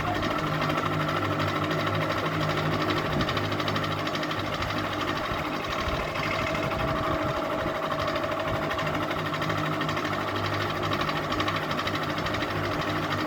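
Ceiling fan running steadily: a motor hum with a fast, even rattle.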